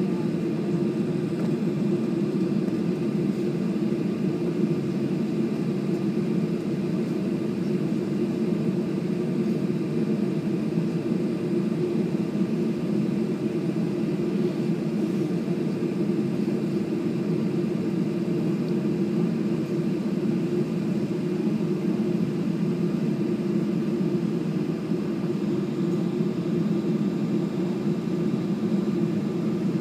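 Boeing 737's jet engines at low taxi power heard from inside the cabin: a steady hum with faint steady whine tones, not rising toward takeoff thrust.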